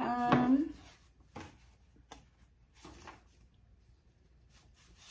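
A woman's brief voiced sound at the start, like a short hum, then a few faint rustles and light knocks of a small bottle and packaging being handled in a quiet small room.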